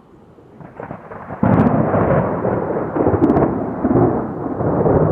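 Thunder: a low rumble builds, then about a second and a half in it breaks loud into a long, rolling rumble that swells and fades in waves.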